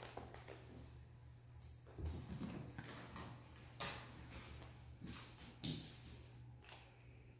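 A kitten batting a small rattling cat toy across a wooden floor: three short high-pitched rattles, the last and longest near the end, with a few light knocks of the toy and paws on the boards in between.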